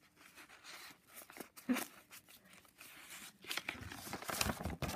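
Pages of a ring-binder junk journal being handled and turned: paper rustling and crinkling with a few small knocks, busiest in the last second and a half.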